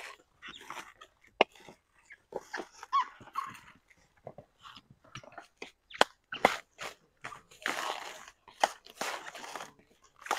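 Coconut husk being torn off by hand: a run of sharp cracks and snaps of the fibrous husk, with short rasping, tearing bursts as the fibre rips away.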